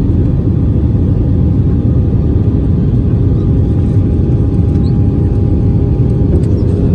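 Steady cabin noise inside an Airbus A320-family airliner on final approach with the flaps extended: a loud, even rumble of the engines and airflow over the wing. A faint steady tone stops about six seconds in.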